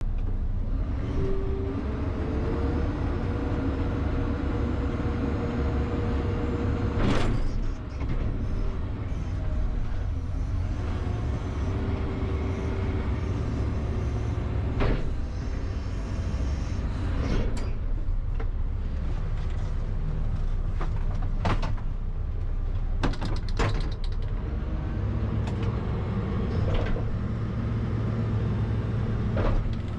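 John Deere 310SL backhoe loader's 99 hp diesel engine running steadily under work, with a hydraulic whine that rises in pitch about two seconds in and holds for several seconds, and comes back briefly near the middle. Sharp metallic knocks of the working bucket and linkage break in several times.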